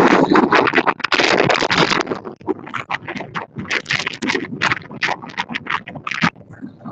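Sled dogs yelping and barking in quick, irregular bursts, after a loud scraping rustle in the first two seconds.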